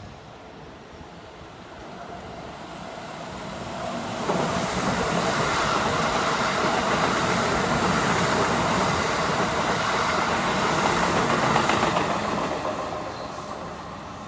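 Keikyu Main Line electric train running by on the station track: the rumble builds over the first few seconds, stays loud for about eight seconds, then fades.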